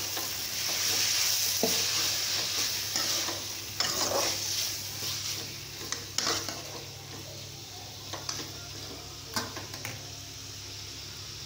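Capsicum, onion and tomato sizzling in oil in a metal kadai while a metal spatula stirs them, scraping and knocking against the pan every second or two. The sizzle is loudest in the first few seconds, then dies down.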